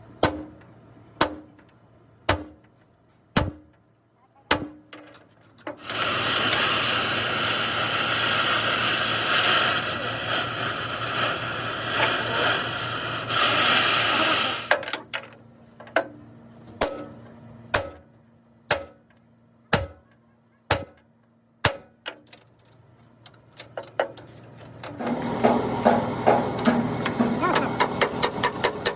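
Hammer blows on truck body sheet metal, about one a second, broken by a loud steady noise for about eight seconds; near the end the blows come fast and close together.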